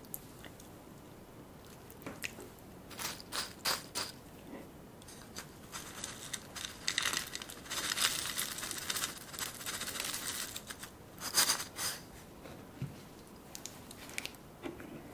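Close-miked eating and food-handling sounds: scattered crunches at first, then a dense stretch of crackling and crinkling about seven to eleven seconds in, and a couple of sharp crunches just after.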